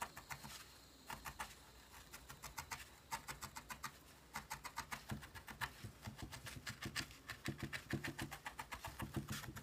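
Felting needle jabbing repeatedly through brown wool into a foam pad: a quick, even run of soft ticks, about five or six a second.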